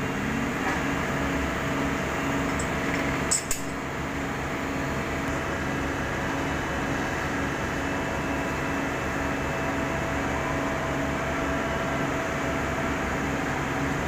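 Diesel engine of a Sumitomo HA60C asphalt finisher running steadily as the paver crawls up onto a self-loader truck's tilted bed, with two sharp knocks about three and a half seconds in.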